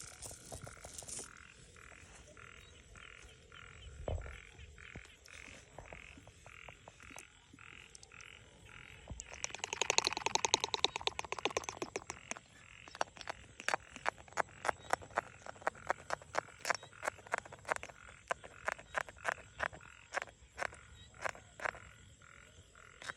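Frogs calling at night: repeated short croaks, a few a second, with a fast rattling run of calls about ten seconds in.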